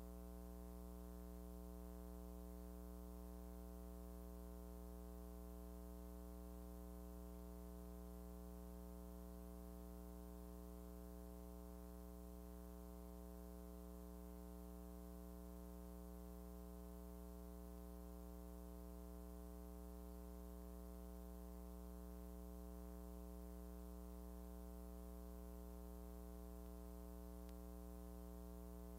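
Faint, steady electrical hum with its overtones, unchanging throughout, over a light hiss: the empty soundtrack of a silent film transfer.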